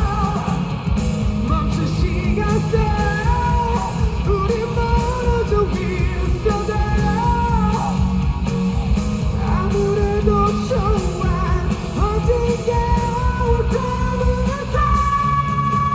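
Pop-rock song played live by a band, with a male lead singer singing the melody over drums, bass and guitar, holding one long note near the end.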